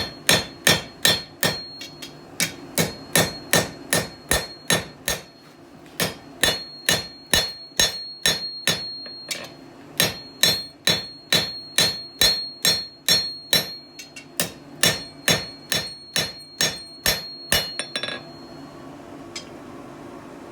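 Blacksmith's peen hammer striking hot mild steel on an anvil, about two ringing blows a second with two short pauses, spreading out the blade of a small forged axe head. The hammering stops near the end.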